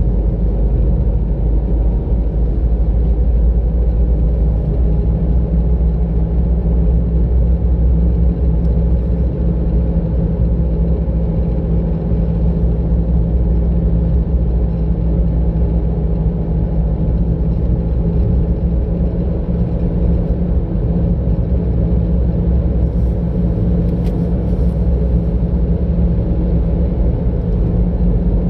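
Car driving at a steady speed, heard from inside the car: a low, even rumble of engine and tyre road noise.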